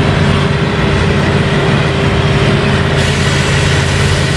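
Mobile crane's heavy diesel engine running steadily: an even low engine hum with a steady tone on top.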